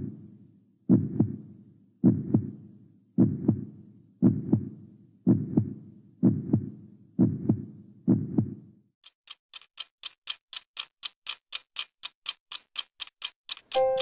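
Heartbeat sound effect, a low double thump about once a second, eight or nine times. About two-thirds of the way through it gives way to a clock ticking quickly, a little under three ticks a second.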